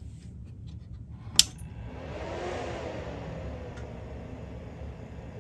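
The power switch of a Lab Gruppen eight-channel Class D amplifier clicks on sharply. Its cooling fans then whoosh up to speed and ease back to a steady whir.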